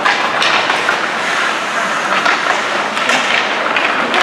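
Ice hockey play in a rink: a steady, noisy din with several sharp clacks, typical of sticks and puck striking.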